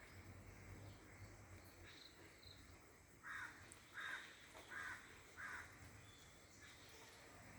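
A bird giving four short calls in quick succession, about two-thirds of a second apart, a little over three seconds in, over faint background.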